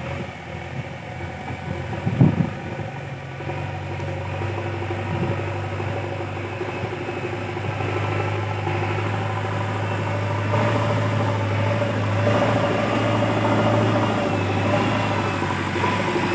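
JCB backhoe loader's diesel engine running steadily while the front loader bucket pushes soil, with a single knock about two seconds in. The engine grows louder from about halfway through.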